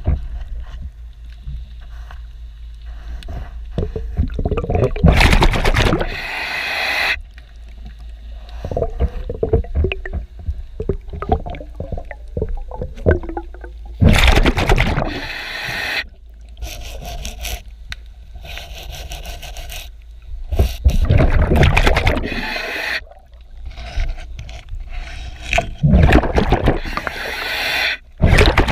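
Underwater hull scrubbing: scraping and crackling against a boat's bottom, broken every six to eight seconds by a loud rush of a diver's exhaled regulator bubbles.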